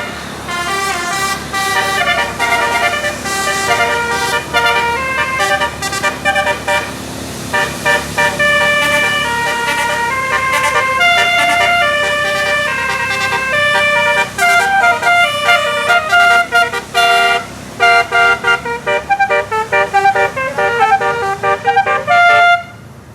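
Telolet basuri musical air horn playing a fast melody non-stop, its tones stepping up and down from note to note, breaking off briefly near the end.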